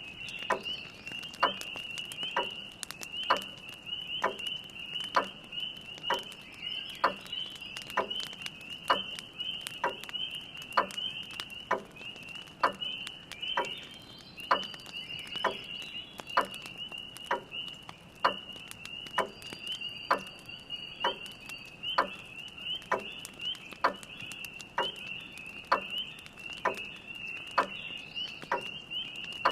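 A chorus of spring peepers peeping steadily, under a grandfather clock ticking evenly about once a second. Faint crackles of a wood fire are scattered through it.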